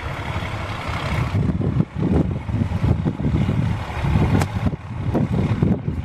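Heavy truck engine running at low speed, hauling a house on a trailer along a gravel road, with gusts of wind rumbling on the microphone.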